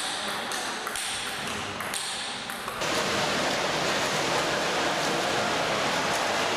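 Table tennis rally: a quick series of sharp clicks as the celluloid ball strikes the paddles and the table. A little under three seconds in it switches to a steady, louder wash of splashing water from a swimmer doing front crawl in an indoor pool.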